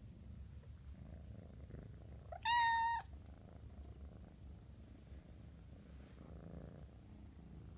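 Kitten purring softly and steadily while being stroked. About two and a half seconds in comes one short, high-pitched mew, the loudest sound.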